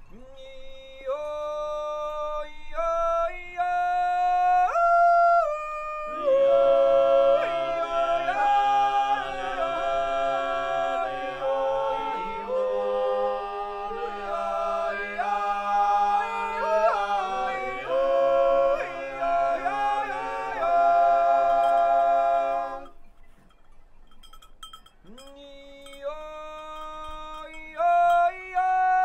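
Naturjuuz, the wordless natural yodel of Switzerland's Muotathal, sung a cappella by a male group. A lead voice opens alone, leaping between held notes. About six seconds in, the other men join in sustained chords over a low bass note. The chords stop a few seconds before the end, and a single yodeling voice starts again.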